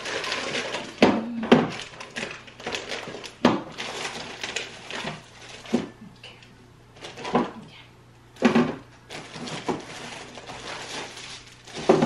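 Food containers being moved about on the shelves of an open refrigerator: irregular knocks and clinks, with stretches of rustling in between.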